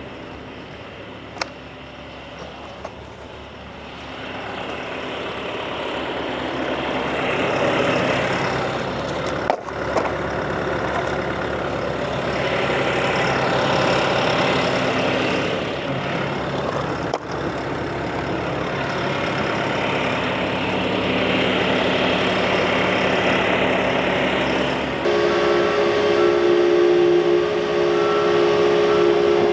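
Bobcat T450 skid steer's diesel engine running and revving up under load, starting about 4 seconds in. About 25 seconds in, a steady high hydraulic whine sets in.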